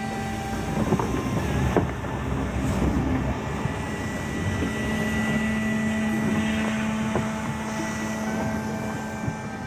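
Rhaetian Railway electric train rolling slowly past with a steady hum, with a few sharp knocks in the first two seconds.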